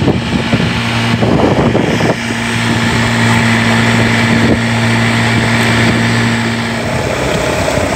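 Outboard motor of a small open fishing boat running at steady cruising speed, a constant low hum under the rushing hiss of wind and water.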